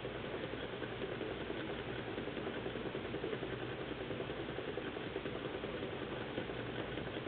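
Small homemade Stirling hot-air engine, heated by a Sterno can, running steadily with a fast, even mechanical ticking from its moving piston, displacer and flywheel.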